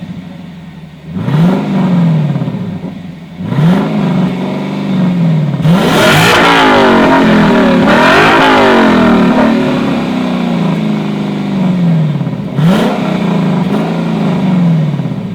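A sports car engine revved repeatedly, with short blips that rise and fall back and a longer run of quick revs in the middle.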